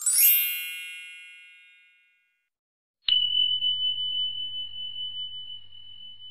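Intro sound effects: a bright shimmering chime that fades away over about two seconds. About three seconds in, a click is followed by a single high bell ding that rings on and slowly fades.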